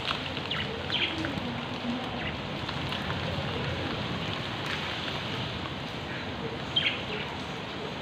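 Steady monsoon rain pouring onto a paved courtyard, with budgerigars in an outdoor cage giving short, high chirps now and then, the loudest about a second in and near the end.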